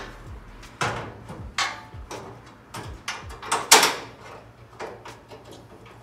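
Aluminum radiator being worked down into a truck's radiator core support: a string of irregular knocks and scraping clunks, the loudest a little before four seconds in.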